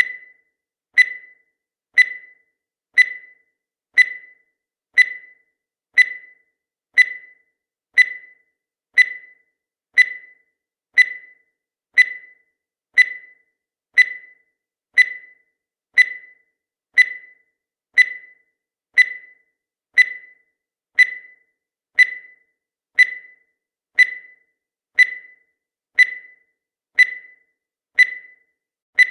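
Countdown timer sound effect: a short, high-pitched ping once every second, each fading quickly, in an even, unbroken rhythm.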